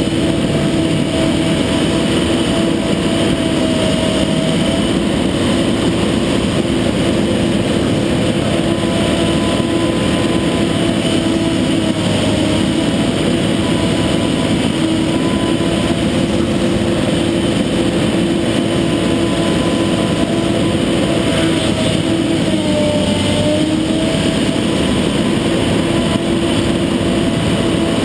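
Kobelco SK250 long-reach excavator's diesel engine and hydraulics running steadily, heard from inside the cab, with a whine that dips slightly in pitch a few times as the boom and bucket work.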